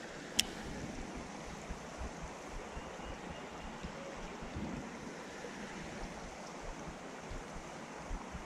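Shallow rocky creek water running over stones in a steady rush, with a single sharp click about half a second in.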